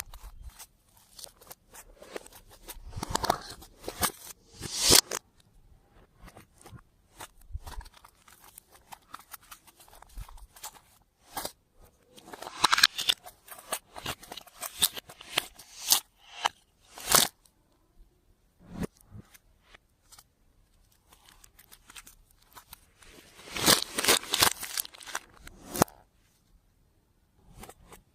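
Clear slime being worked by hand, giving sticky crackling and clicking in several spells of a second or two, with quieter gaps between.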